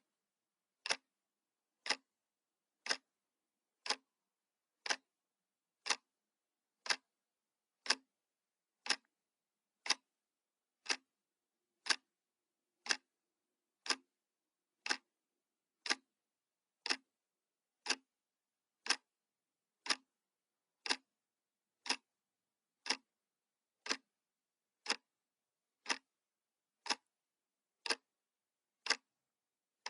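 Clock ticking sound effect: one sharp tick each second, evenly spaced, with silence between the ticks.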